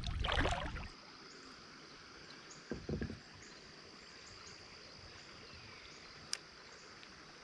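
A kayak paddle stroke splashing through the water in the first second, then quiet open-water ambience with a faint, steady, high insect drone. Two soft knocks sound about three seconds in, and a sharp click a little after six seconds.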